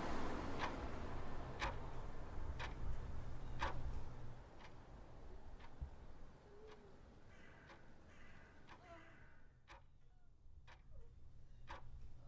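A clock ticking steadily, about one tick a second, over a low hum that drops away about four seconds in.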